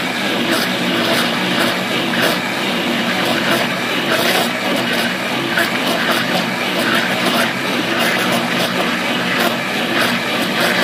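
Countertop blender motor running steadily with a constant hum, churning a thick, creamy mixture of lemon juice, cream and condensed milk.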